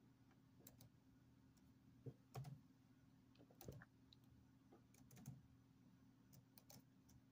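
Faint, irregular key presses on a laptop keyboard while text is typed, a dozen or so separate clicks over a low steady hum.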